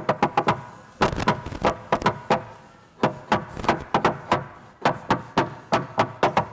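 Tap shoes striking a hard floor in fast runs of sharp, ringing taps, broken by short pauses about a second in and again near three seconds.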